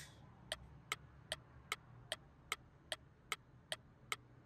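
Ticking clock sound effect marking a countdown for thinking time, faint and steady at about two and a half ticks a second.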